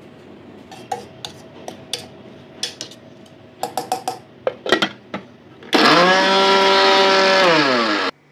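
A spoon scraping and knocking inside a steel mixer-grinder jar full of chopped coriander and green chillies. Then, for a little over two seconds near the end, the mixer grinder's motor runs loudly and steadily, its pitch dropping just before it stops.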